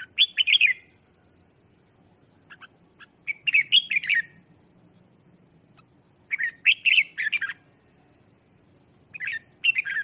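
Red-whiskered bulbul singing short, quick, bright warbled phrases, four bursts a few seconds apart.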